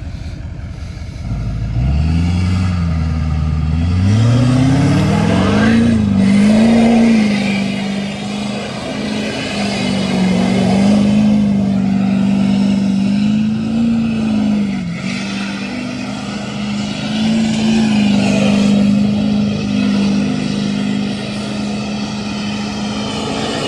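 LML Duramax 6.6-litre V8 turbodiesel floored: the engine revs climb for the first several seconds, then are held against the rev limiter, wavering slightly, with the turbocharger fluttering under the wide-open throttle.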